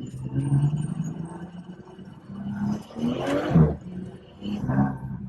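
BMW 440i's B58 turbocharged inline-six engine and exhaust droning, heard from inside the cabin while driving, with a louder swell about three seconds in.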